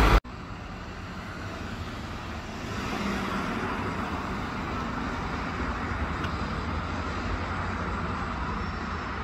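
Steady road traffic noise, growing a little louder about three seconds in.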